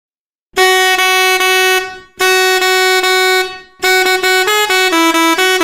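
SEGER 86EM Mehter melody air horn with three red plastic trumpets sounding. It gives two long blasts on the same note, each fading out at its end. About four seconds in, it starts a quick tune of shorter notes stepping up and down in pitch, one of its Ottoman Mehter march melodies.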